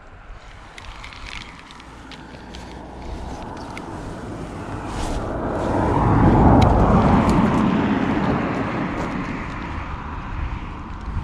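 A passing vehicle: a rumbling noise that swells to a peak about six seconds in and then fades away, with a few small clicks over it.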